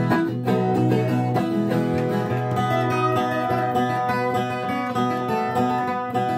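Viola caipira, the Brazilian ten-string folk guitar, playing an instrumental passage of a gospel worship song.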